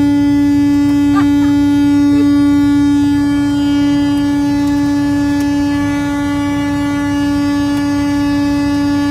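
Semi truck's air horn stuck on, blaring one steady unbroken note over the low rumble of the truck on the road. The horn's lever jammed after its pull cord was yanked hard, so it will not stop sounding.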